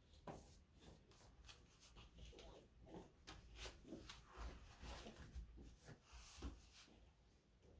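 Faint rustling of a sheet being spread and smoothed over a floor mattress, with soft taps and thumps from the handling.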